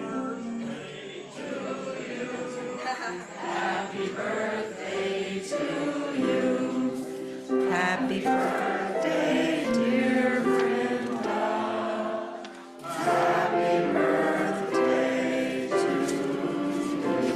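A group of voices singing a song together, with long held notes, and a short dip in loudness about two-thirds of the way through.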